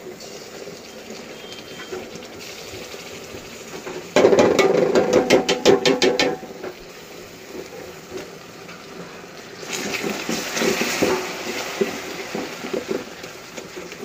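Heavy cream poured from a can into hot melted sugar in a metal pot. About four seconds in there is a sudden loud crackling lasting about two seconds as the cream meets the hot caramel. From about ten seconds a spatula stirs and scrapes the pot.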